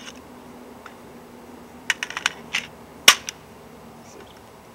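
Metallic clicks of .223 cartridges and an AR-15 magazine being handled: a quick run of small clicks about two seconds in, then one sharp, louder click a second later.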